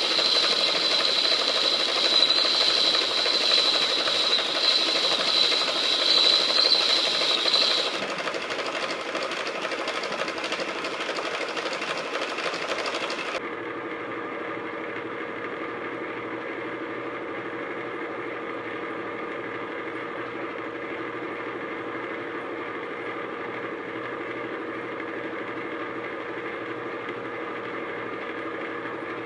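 Metal lathe running and cutting, with a steady high whine over the machining noise for the first third. About halfway through the sound changes abruptly to the quieter steady running of the machine.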